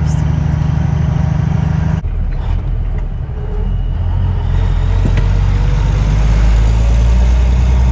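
Steady engine and road drone heard from inside a moving vehicle's cab. The sound changes abruptly about two seconds in, then grows a little louder toward the end.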